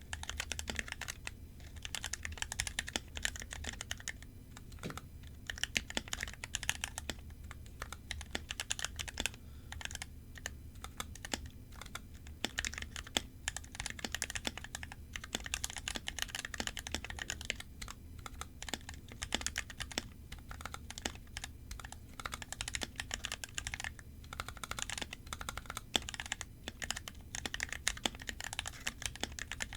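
Typing on an NK65 Entry Edition mechanical keyboard with lubed Gateron Clear linear switches, Gateron Black switches on the modifiers and clipped, lubed Cherry plate-mount stabilizers: a fast, dense run of key clacks broken by brief pauses. The typing starts suddenly right at the beginning.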